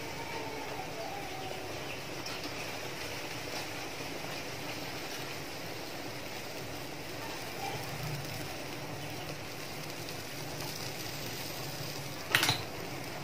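Milk payasam of oats simmering in a steel pan on the stove, a steady hiss of bubbling as it comes to the boil. A single short sharp knock near the end.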